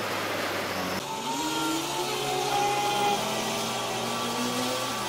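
A steady engine hum, then an abrupt switch about a second in to a heavy diesel engine revving up: its pitch rises and then holds at high revs. The engine sound fits the truck crane's engine working its hydraulics under the weight of an overturned tanker trailer.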